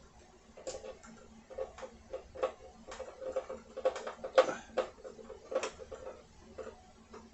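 A string of irregular small clicks and taps as screws are backed out of the blower motor mounting with a hand tool, busiest in the middle.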